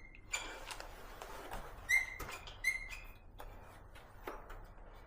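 New disc brake pads lightly rubbing the rear rotor of a Fiido L3 e-bike as the wheel is turned, giving a few short, high squeaks twice near the middle, with light clicks between: the caliper set a little tight.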